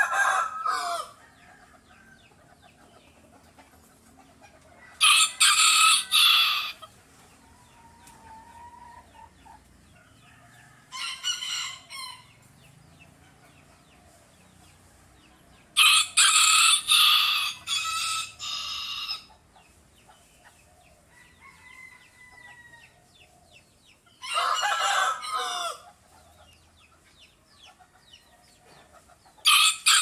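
A rooster crowing six times, about every five or six seconds, each crow a loud call of several notes. The crow about halfway through is the longest, and the third is shorter and fainter. Faint short calls come in between.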